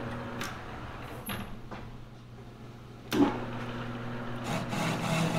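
A few light clicks and knocks, the sharpest about three seconds in, over a steady low hum.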